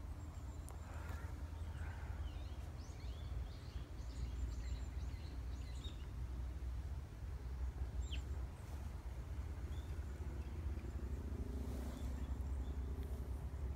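Small birds chirping in short scattered calls over a steady low wind rumble on the microphone.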